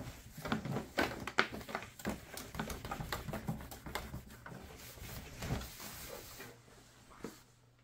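A cloth wiping and rubbing the clear plastic case of a Power Mac G4 tower: a run of short, irregular rubbing strokes that thin out and stop about six and a half seconds in.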